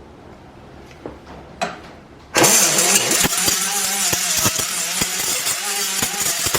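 Pneumatic cut-off tool (SP Air SP-7231 flex-head, 3-inch wheel) starting suddenly about two and a half seconds in, then running loud with a hiss and a whine whose pitch wavers, and irregular knocks as the wheel works against metal. A few light clicks come before it starts.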